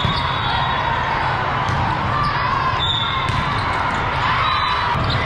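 Echoing din of a large volleyball tournament hall: ball contacts and bounces from the courts over a steady murmur of crowd chatter. Thin high referee whistles sound a few times from the surrounding courts.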